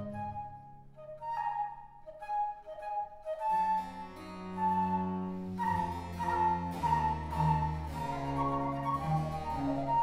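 Baroque transverse flute (traverso) playing its obbligato melody, nearly alone at first. About three and a half seconds in, low strings and harpsichord continuo come in beneath it.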